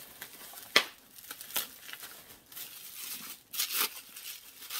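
Packing material being torn and crinkled as a wrapped item is unpacked by hand, with a few sharp crackles, the loudest about a second in.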